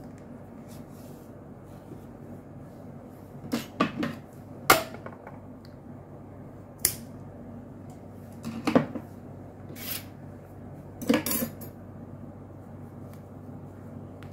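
Scattered light clicks and knocks of small objects being handled and set down on a tabletop, some in quick pairs, over a steady background hiss.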